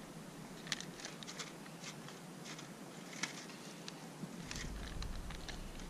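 Tabby cat eating wet food from a plastic tray: faint, irregular small clicks and smacks of its chewing. A low rumble comes in about four seconds in.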